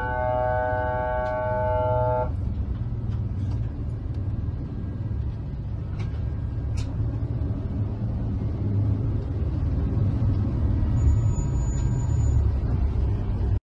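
A horn sounding one steady multi-tone blast that cuts off about two seconds in, over the steady low rumble of a fast patrol boat under way, engines running hard through rough water. The sound stops abruptly near the end.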